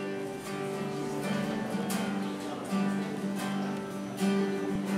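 Acoustic guitar strumming slow chords, each strum left to ring into the next.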